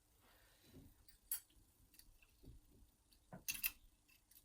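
Faint, scattered metallic clicks and taps of the levers and spacers of an opened 5-lever mortice sash lock being handled, with a sharp click about a second in and a short cluster of clicks past three seconds in.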